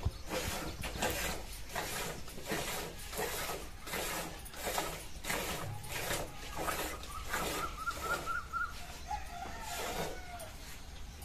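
A Gir cow being milked by hand into a steel pail: milk squirting from the teats in short frothy hisses, about two strokes a second. Around the middle a hen clucks in a quick run of high notes, followed by a lower call.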